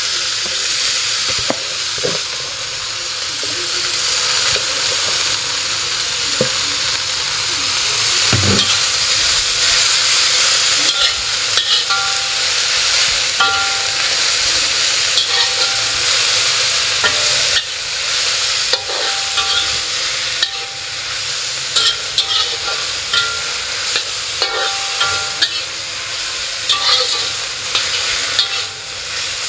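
Freshly washed water spinach sizzling steadily in a hot oiled wok, stir-fried with a metal spatula that scrapes and clinks against the wok, more often from about ten seconds in.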